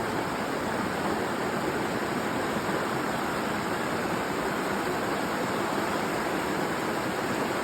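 Icy mountain river rushing: a steady, unbroken rush of flowing water.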